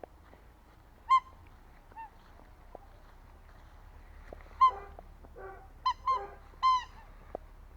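A small bicycle horn on a child's bike squeezed in short honks, about six at irregular intervals, some faint and some sharp.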